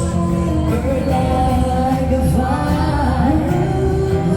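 Music with singing over a steady low bass backing.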